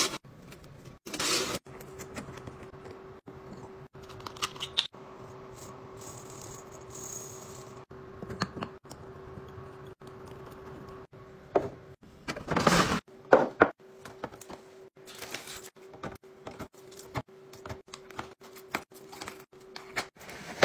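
Kitchen items being handled, set down and arranged: a string of short clinks, rattles and knocks, loudest in a cluster about two-thirds of the way through, over a faint steady tone.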